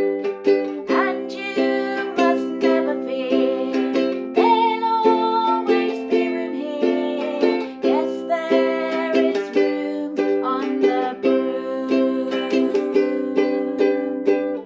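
Music: a plucked-string tune with a steady, rhythmic strum.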